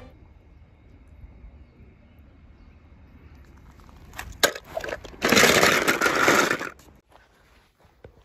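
Stones rattling and crunching as toy cars are handled on a bed of rocks: a few sharp clicks, then about a second and a half of loud crunching, then a couple of faint knocks.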